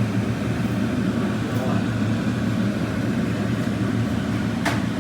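A steady low mechanical hum with an even rushing noise over it.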